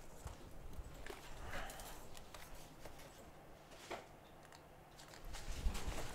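Faint handling noises at a repair bench: a few small clicks and light rustles, then low bumps near the end as an arm reaches across the work mat.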